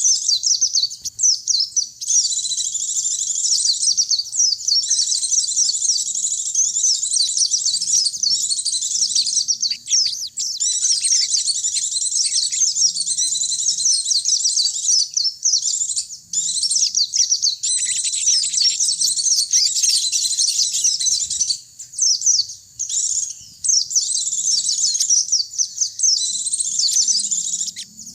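Pleci (white-eye) and sogon birds singing: rapid, high-pitched chattering trills in long runs, broken by a few brief pauses.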